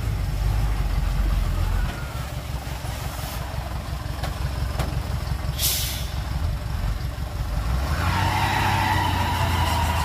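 Heavy diesel dump truck engine rumbling low, easing slightly about two seconds in, with a short air-brake hiss a little past halfway. A steadier higher whine joins near the end.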